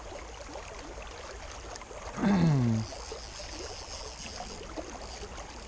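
Steady rush of a creek running high. About two seconds in, a short man's vocal sound falls in pitch over half a second or so and is the loudest thing heard.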